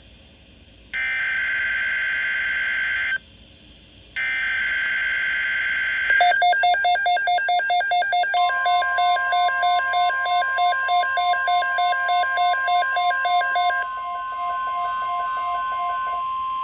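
NOAA Weather Radio Emergency Alert System broadcast: two bursts of screechy digital SAME header data, then a rapid beeping at about four beeps a second, joined after a couple of seconds by the steady 1050 Hz weather-radio warning alarm tone that signals an alert is about to be read.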